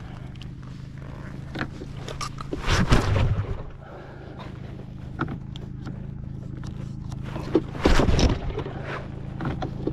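An engine idling steadily, with two loud bursts of rough, scraping noise on top, about three and eight seconds in.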